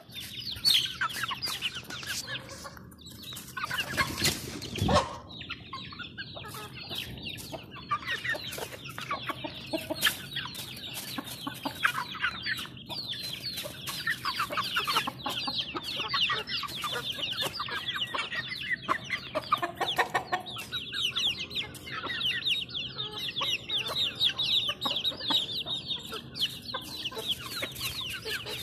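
A flock of young chickens peeping and clucking without a break, a dense run of short, high, falling chirps. A brief louder noise comes about four seconds in.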